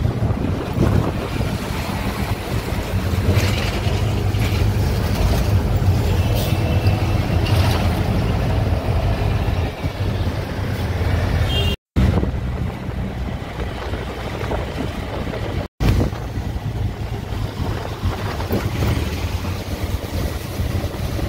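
Auto-rickshaw engine running steadily as the three-wheeler drives along, heard from inside the open cab with road and wind noise. The sound drops out for a moment twice in the second half.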